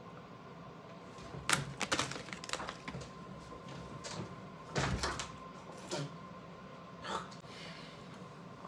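A man gagging and spitting after tasting a disgusting snack: a few short, sharp retching noises about one and a half to two and a half seconds in, a heavier one about five seconds in, and smaller ones later.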